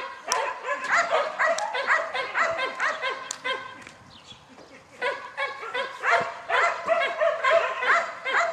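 Herding dog barking and yipping in quick, repeated runs while working a cow. It stops for about a second and a half near the middle, then starts again.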